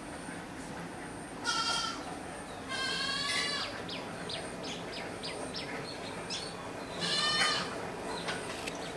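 An animal calling three times in the background: short, high-pitched cries about a second and a half in, again at about three seconds, and once more about seven seconds in, with a few brief faint chirps between them.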